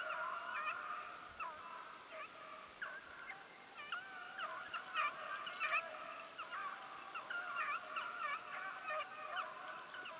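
A pack of rabbit hounds baying on a rabbit's trail, many short overlapping cries in a continuous chorus.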